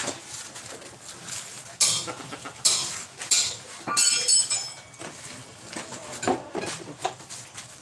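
Metal hand tools and engine parts clinking and knocking together as an engine is being dismantled: a handful of sharp clinks, the one about four seconds in ringing briefly.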